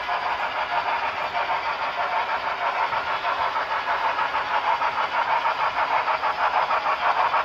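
HO scale model of a Union Pacific 4-8-4 steam locomotive running toward the listener, with a fast, even chuffing rhythm that grows louder near the end.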